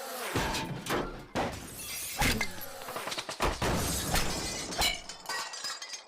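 Glass shattering, played as a sound effect: a crash and then many pieces clinking and ringing as they fall, tailing off near the end.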